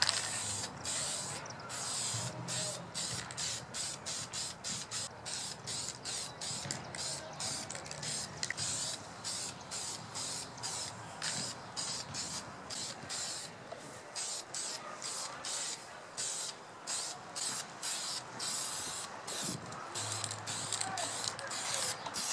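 Aerosol spray-paint can hissing in short repeated bursts, two or three a second, as a light coat of olive drab paint goes onto a rifle.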